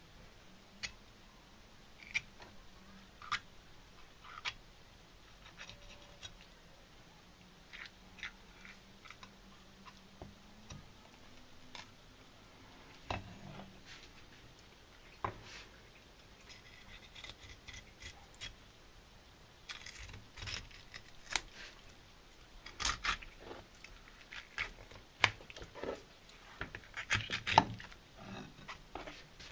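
Knife work on a spotted mackerel on a plastic cutting board: scattered clicks and taps of the blade and fish being handled, turning into denser scraping, rasping cuts in the second half as the knife runs along the fish to fillet it.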